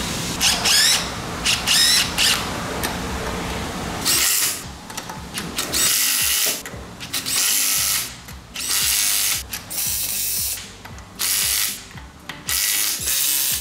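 Cordless impact wrench tightening a car's wheel lug nuts through a torque-limiting extension socket. It gives a few short rising whirs at first, then runs in repeated bursts of hammering about a second long.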